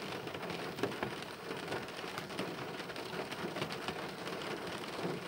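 Steady rain falling, with many individual drops ticking sharply throughout.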